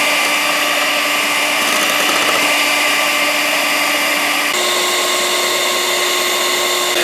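Electric hand mixer running steadily, its twin metal beaters whipping eggs and sugar in a glass bowl. The motor's hum jumps to a higher pitch about four and a half seconds in.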